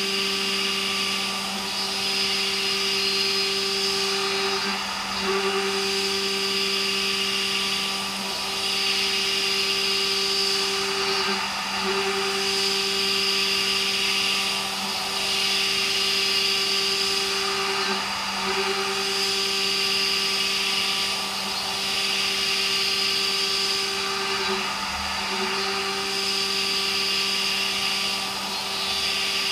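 CNC machining centre milling H13 tool steel: a steady pitched hum from the spindle and cutter with a hissing cutting noise over it. The hum breaks off briefly and the cutting noise dips about every six or seven seconds as the tool passes repeat.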